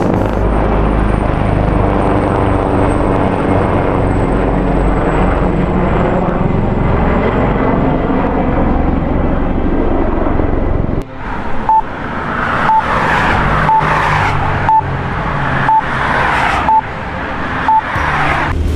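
Car on the move: steady engine and road noise. About two-thirds of the way through, a short pip starts sounding about once a second.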